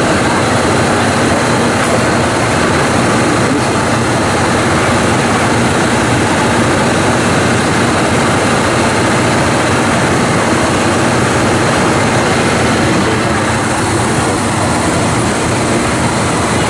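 Steady, loud rumble of a diesel train engine idling at the platform, with no change in pitch or level.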